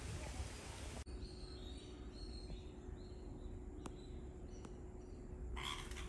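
Soft outdoor hiss, then after a cut a series of short, faint, high chirps from red-vented bulbuls over a low steady hum, with two sharp clicks. Near the end there is a brief, louder rush of noise.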